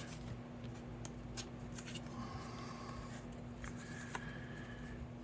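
Cardstock pieces being handled and pressed into place: light paper rustling and a few small taps, over a steady low hum.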